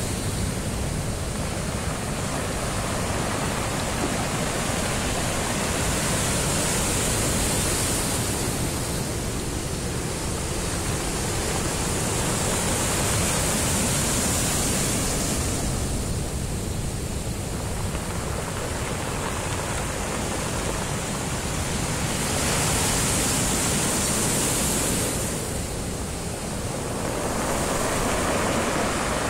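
Heavy surf on a rough sea, a continuous rush of breaking, foaming water that swells and eases every several seconds as each wave comes in.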